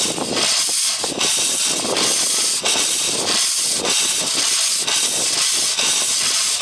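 Peerless steam traction engine running, its single cylinder's drain cocks open and blowing steam in a loud steady hiss, with repeated exhaust chuffs.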